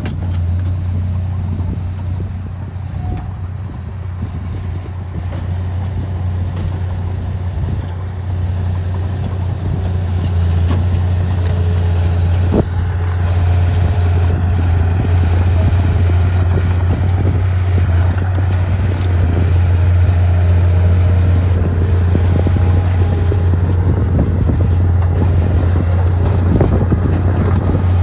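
Heavy earthmoving machine's diesel engine running under work, a steady low drone that grows gradually louder.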